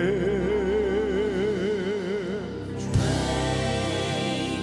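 Live gospel music. A male singer holds a long note with a wide vibrato over piano and band. About three seconds in, a loud hit from the band comes in and the backing vocalists join with a fuller sound.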